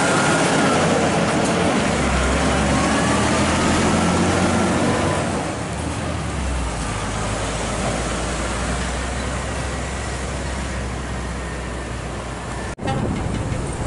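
Scania heavy truck tractor pulling a lowbed trailer loaded with excavator parts, its diesel engine and tyres loud as it passes close by, then settling to a steadier low engine drone as it moves away. The sound cuts out briefly near the end.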